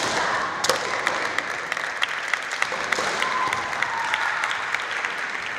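Spectators in a gymnasium clapping, a burst of applause that starts abruptly and runs for several seconds before thinning out. This is the clapping that greets a point (ippon) scored in a kendo bout. A sharp crack comes near the start.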